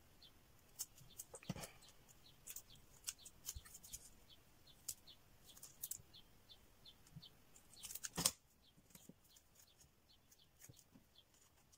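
Faint rustling and clicking of paper and card being handled and cut with scissors, with one louder rustle about eight seconds in.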